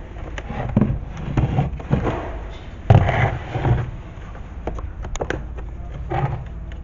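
Plastic clips of a Lexus CT200h instrument cluster's front cover being pried loose with a thin pry bar: a string of irregular clicks, snaps and knocks of plastic, the sharpest about three seconds in.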